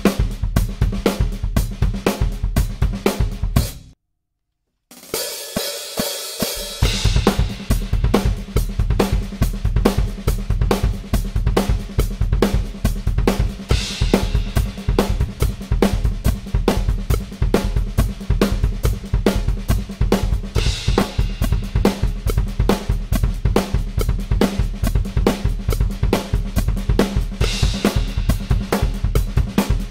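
DW Collector's Maple drum kit played in a fast linear groove, with snare, bass drum and hi-hat strokes in an even, dense stream at 120 bpm. The playing stops for about a second around four seconds in, then resumes at 140 bpm, with a cymbal crash about every seven seconds.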